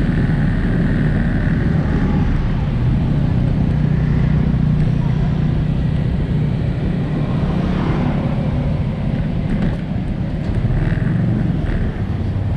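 Riding a motorbike through street traffic: a steady low rumble of wind on the microphone, engine and tyres, with other motorbikes and cars around, easing a little near the end as the ride slows to the curb.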